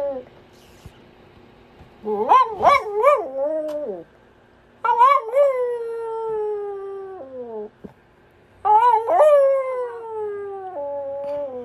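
Cavalier King Charles Spaniel howling: three howls a second or so apart, each opening with a few quick wavering rises and falls in pitch and then drawing out into a long tone that slides downward.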